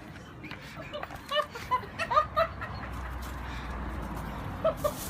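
A person giggling in short bursts, bunched around the middle, with two more short bursts near the end.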